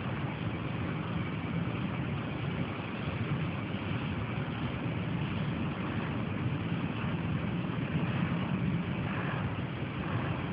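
Steady low background rumble with no distinct sounds standing out.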